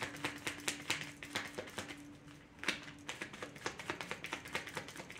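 A deck of divination cards being shuffled by hand: a quick run of soft card clicks and slaps that eases off briefly about two seconds in, then picks up again.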